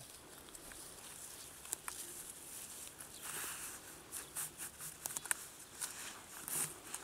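Close rustling and scattered light clicks of movement in dry grass and twigs, in short irregular bursts that are busiest in the second half.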